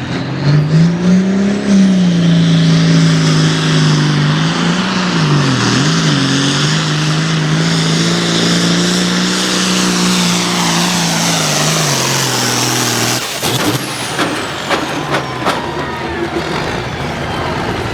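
Hot farm pulling tractor's turbocharged diesel engine run hard at high RPM under load during a pull, its pitch dipping a few times before holding steady. About thirteen seconds in the throttle is cut: the engine drops off suddenly and a high turbo whine falls away, followed by scattered clicks and knocks.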